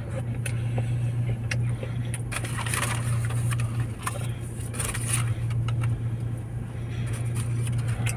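A person eating a chicken wrap: scattered chewing clicks and brief rustles, a couple of them louder about two to three seconds in and around five seconds, over a steady low hum.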